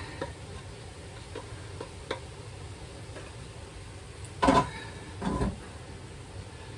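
Kitchen cookware being handled on the stove: a few faint ticks, then two louder clanks a little under a second apart, near the middle.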